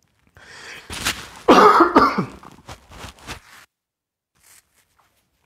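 A person coughing and clearing their throat: a run of harsh coughs over about three seconds, the loudest in the middle, then quiet.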